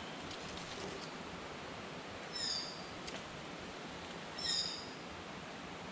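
A bird calling: two short, clear notes about two seconds apart, each ringing at several high pitches at once, over a steady outdoor hiss. A few faint ticks come in the first second.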